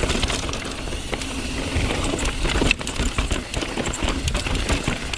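Downhill mountain bike riding fast over rough, rocky trail: tyres on dirt and rock, with many sharp clicks and knocks from the chain and frame rattling over the bumps, over a low rumble of wind buffeting the microphone.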